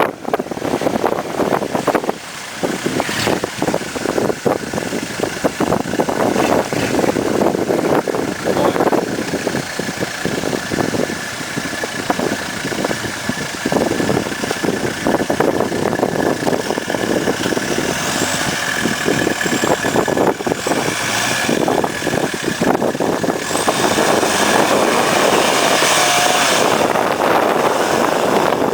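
An off-road 4x4's engine running and revving as it works over rough ground, with many short knocks and rattles throughout. It grows a little louder and steadier near the end.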